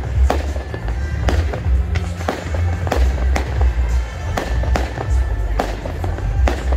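Fireworks display: rockets launching and bursting, irregular sharp bangs about two or three a second.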